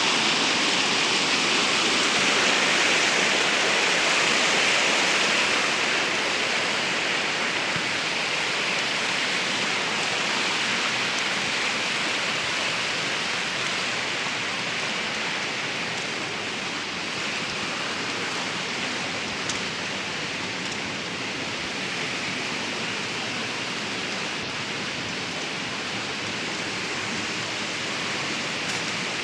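Waterfall: a steady rush of falling water, a little louder for the first several seconds.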